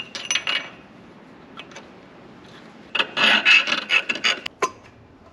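Round file rasping back and forth through the hole of a metal washer clamped in a bench vise, enlarging the hole. A short spell of filing at the start, then a quick run of strokes from about three seconds in.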